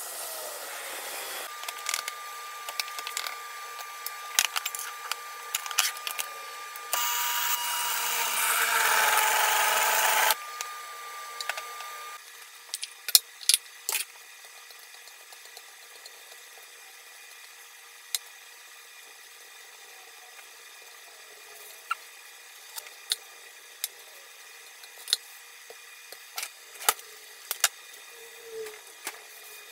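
A loud hiss lasting a few seconds, then sharp scattered knocks and taps on a wooden cutting board as dough is handled and set down.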